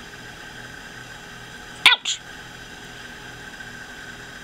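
Chihuahua puppy giving one short, sharp, high-pitched bark about two seconds in, followed at once by a softer second yip, while play-attacking a hand.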